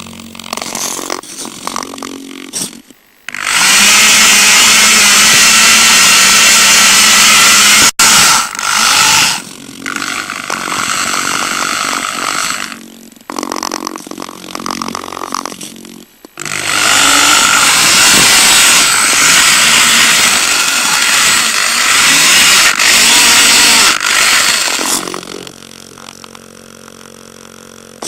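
Small electric drive motors and gearing of a radio-controlled rover, heard close up from the rover itself, driving in spurts: long stretches of loud harsh whirring and rattling with short pauses between, dropping to a quieter steady hum near the end.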